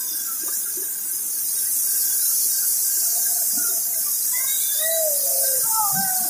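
Steady hiss of rushing river water, with faint children's voices calling and squealing in the second half.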